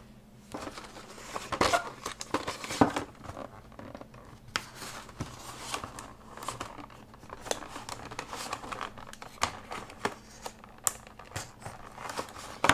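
Stiff clear plastic of a toy blister pack being cut and pried open by hand: irregular crinkles, clicks and snaps, starting about half a second in.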